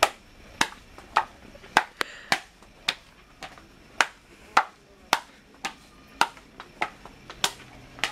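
Swim flippers slapping a hard tile floor with each walking step: sharp slaps at a steady pace, a little under two a second.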